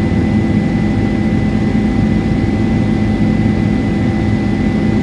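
Helicopter cabin noise in flight: a loud, steady rumble of engine and rotor, with a thin, constant high whine over it.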